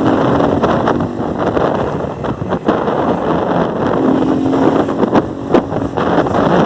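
Motorcycle with a de-baffled exhaust running loudly while being ridden, with wind buffeting the microphone.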